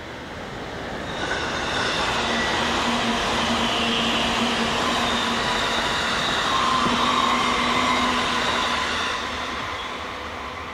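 E657 series limited express electric train passing at speed: a rushing noise of wheels on rail with steady whining notes. It swells about a second in, stays loud through the middle and fades near the end as the train goes by.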